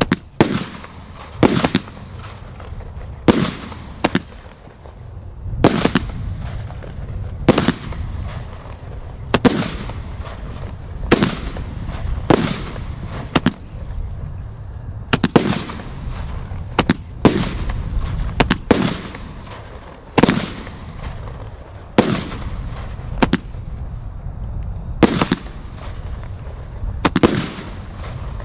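A 149-shot, 20–25 mm consumer firework cake firing, heard from about 100 metres. Shells burst with a sharp bang about every one to two seconds, with a steady low rumble between the bangs.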